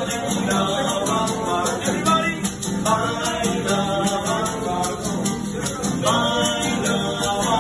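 Latin American music with a singing voice over a steady, quick rattle of shaken percussion.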